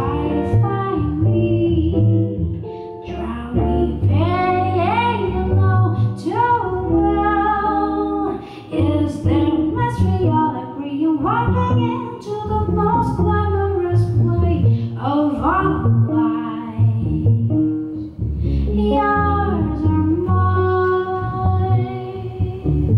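Live jazz trio: a woman singing a flowing, sliding melody over plucked upright double bass notes and electric guitar accompaniment.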